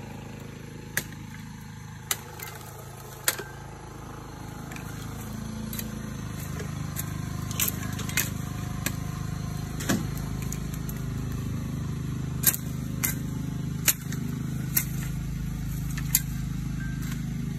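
Bolo (long machete) chopping at cassava stalks and brush: about a dozen sharp single chops at uneven intervals, mostly a second or so apart. A steady low hum runs underneath and gets louder after a few seconds.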